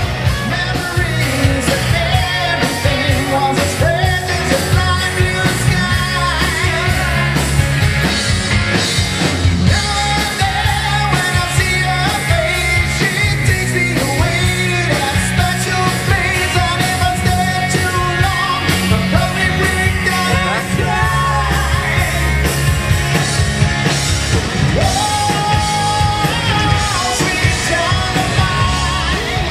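Background rock song with singing, playing steadily.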